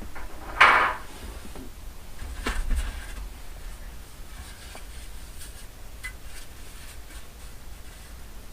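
Plastic dash trim being handled and fitted: a short loud scrape just under a second in, a knock a couple of seconds later, then a few faint clicks.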